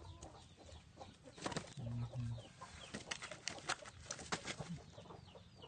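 Young chickens sparring on straw: scattered scuffling and brief wing flaps, with a short low call about two seconds in.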